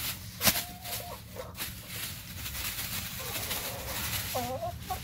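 Domestic hens clucking with short calls while they crowd in for food, over a crackly rustle of a plastic bag and straw. A single sharp click about half a second in.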